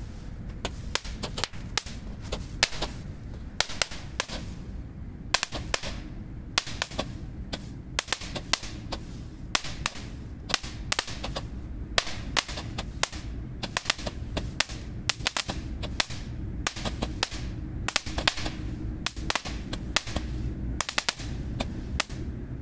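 Roman candles firing: a long run of sharp pops, a few a second at uneven intervals, as the shots leave the tubes.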